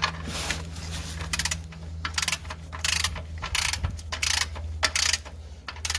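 Ratchet of a click-type torque wrench clicking in a steady run of back-and-forth strokes, about one every three quarters of a second, as a Subaru's oil drain plug is run down toward its 35 ft-lb setting.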